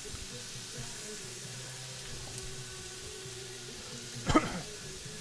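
Onions frying in a cast iron skillet, a steady soft sizzle. Faint music plays underneath, and a brief voice sound comes about four seconds in.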